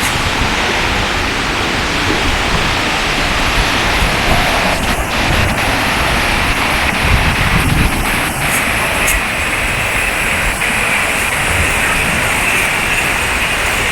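Waterfall rushing steadily, a dense even noise of falling water, with wind rumbling on the microphone.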